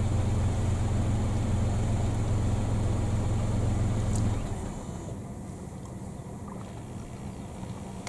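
Low steady hum of an idling car engine, which cuts off about four and a half seconds in, leaving only a faint steady background.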